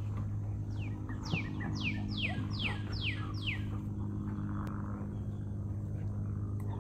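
A bird calling a run of about six quick whistles, each gliding down from high to lower pitch, between about one and three and a half seconds in. A steady low hum continues throughout.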